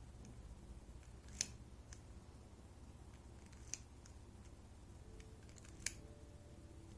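Faint metallic clicks and ticks of tools working in an EVVA 3KS lock cylinder whose core is stuck and will not slide out, with three sharper clicks about two seconds apart.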